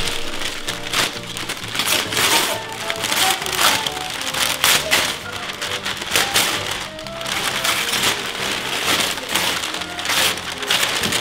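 Background music over the crinkling and tearing of heavy brown kraft paper being pulled off a rolled carpet, in many short, sharp rustles.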